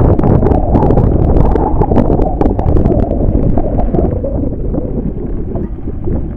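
Wind buffeting the microphone: a loud, unbroken low rumble with many scattered sharp clicks, easing slightly near the end.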